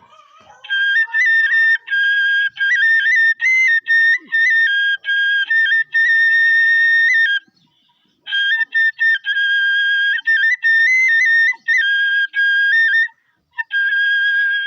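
A high-pitched flute plays a melody: long held notes on one pitch, broken by quick higher ornament notes, in phrases separated by short pauses, the longest about halfway through.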